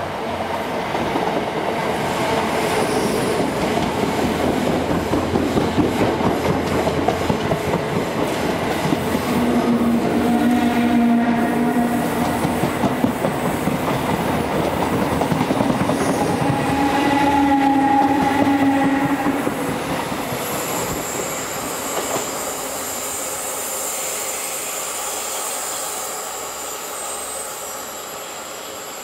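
Royal Mail Class 325 electric mail train running by: a loud rumble and clatter of wheels over the rail joints. A high, thin wheel squeal sets in about two-thirds of the way through as the noise falls away.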